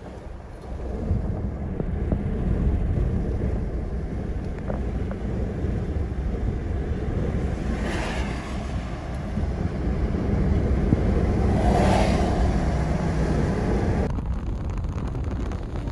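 Steady low rumble of storm wind on the microphone, with two brief stronger gusts about eight and twelve seconds in. The sound changes abruptly about two seconds before the end.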